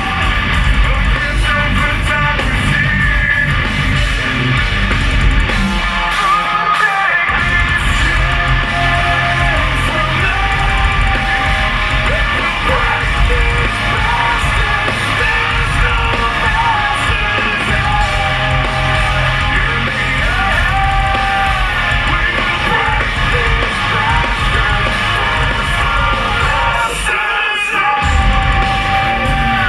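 Heavy metal band playing live: distorted guitars, bass and drums under a singer's yelled and sung vocal. The low end drops out briefly twice, about six seconds in and near the end.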